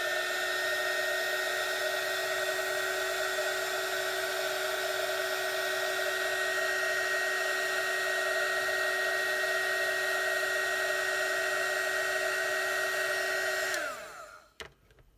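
Small handheld heat shrink gun running, its fan blowing hot air with a steady motor whine, to shrink heat-shrink tubing over a switch's soldered terminals. It is switched off near the end, and the whine drops away and the sound dies out.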